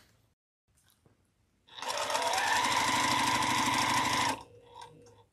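Juki sewing machine stitching a seam at a steady speed. It starts about a second and a half in and stops abruptly after about two and a half seconds.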